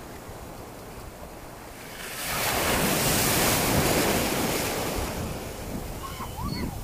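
A sea wave breaking and washing through the shallows close by: the surf hiss swells about two seconds in and fades a few seconds later, over wind buffeting the microphone.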